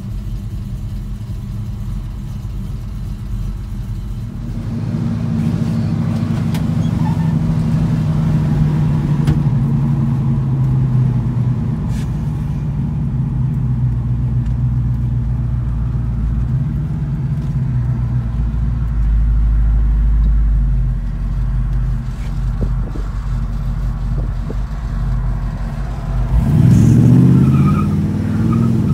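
1978 Chevrolet C10 pickup's engine heard from inside the cab as the truck pulls away and drives along. The engine note picks up about four seconds in, runs steadily, then climbs sharply near the end as the truck accelerates.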